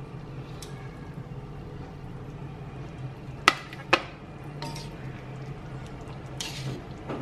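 A plastic plate set down on a tiled kitchen counter: two sharp clacks about half a second apart, over a steady low hum.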